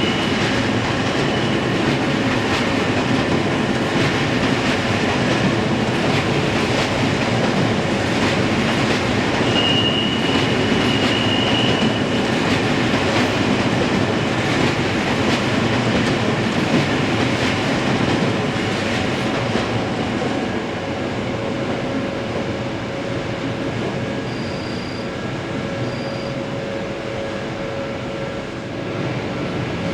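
A passing electric train: wheels clattering over rail joints amid a steady rushing noise, with a brief high wheel squeal about ten seconds in. It grows a little quieter after about twenty seconds.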